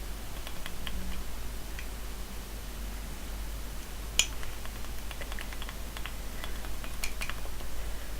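Scattered light clicks of a utensil against a mug while toothpaste slime is mixed, with one sharper click about halfway through, over a low steady hum.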